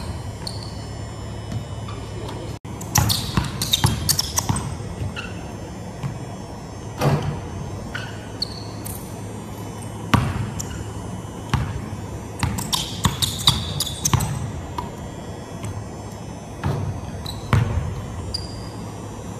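Basketball dribbled on a hardwood gym floor, with irregular bounces in bunches, and sneakers squeaking briefly on the floor as the player cuts.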